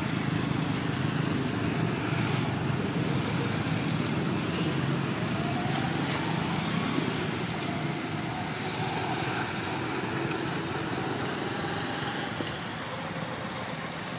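Steady low outdoor rumble of background noise, easing slightly near the end.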